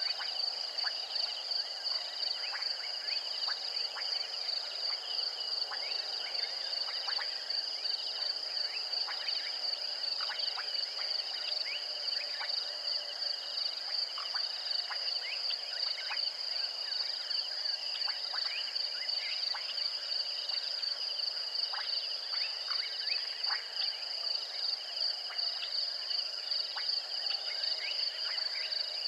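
Night chorus of insects and frogs: a steady, high, pulsing trill from insects, with many short chirps that slide down in pitch scattered throughout.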